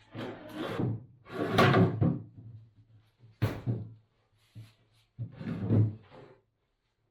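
Four wooden knocks and thuds, each with a short scrape, spaced a second or two apart, like cabinet doors or drawers being shut or wooden parts being set down.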